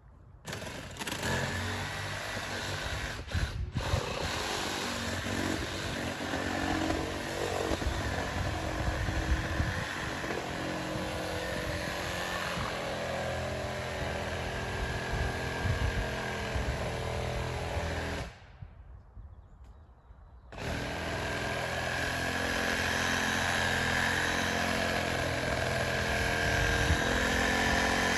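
Chainsaw running, with a sharp drop-out of about two seconds about two-thirds of the way through, after which it runs on steadily.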